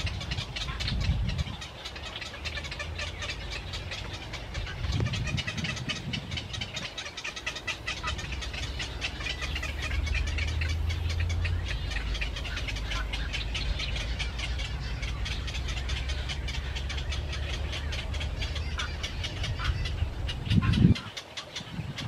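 Birds in a tree chattering and squabbling, many quick high calls overlapping without a break, over a low rumble.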